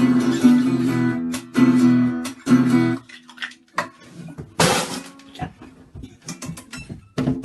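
Acoustic guitar strummed in chords, stopping about three seconds in. After it come scattered short knocks and clicks, with a brief rushing noise near the middle.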